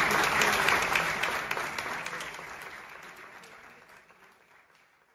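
Audience applauding, a dense patter of clapping that fades out steadily over the last few seconds to near silence.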